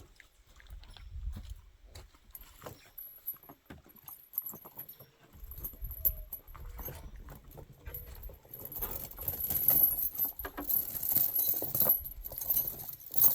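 Metal ATV tire chains clinking and jingling as they are unhooked and worked off a tire, with scattered clicks throughout and a busier run of jingling in the second half.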